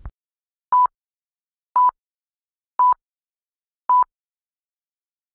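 Four short, identical electronic beeps at one steady pitch, about one a second, with dead silence between them: a quiz countdown timer ticking off the thinking time before the answer.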